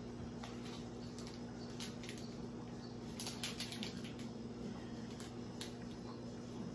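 Seasoning being sprinkled from a small packet onto raw chicken breasts on a cutting board: short crisp ticks and rustles, most of them about three to four seconds in, over a steady low hum.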